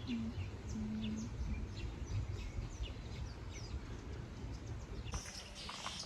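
Small birds chirping: many short, quick calls overlapping, over a low steady background rumble, with a denser flurry of calls near the end.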